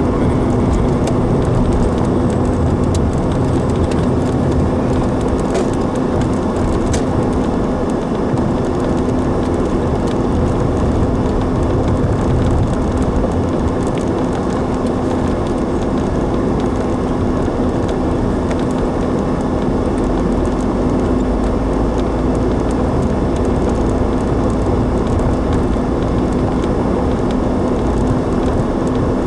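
Steady road and engine noise inside a moving car's cabin: tyre rumble with a constant low hum, unbroken throughout.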